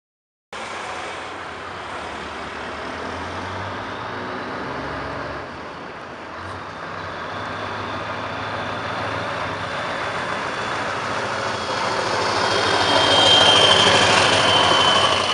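Scania V8 diesel truck engine running at low revs as the truck drives slowly toward and past close by, growing steadily louder and peaking as it passes.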